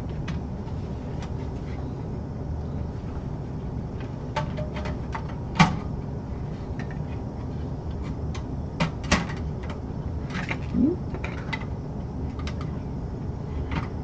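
Scattered clicks and light knocks of a motherboard being slid into the plastic standoff tracks of a metal case's motherboard tray and seated, over a steady low hum. The sharpest knock comes about five and a half seconds in, another about nine seconds in.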